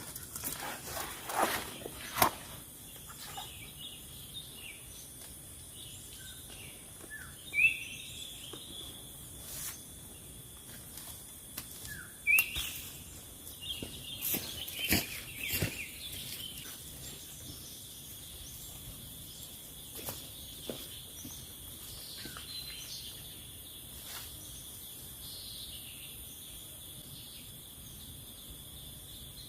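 Birds calling with short, scattered chirps, thicker in the first half, over a steady high-pitched hum. A few sharp clicks or knocks fall in the first half.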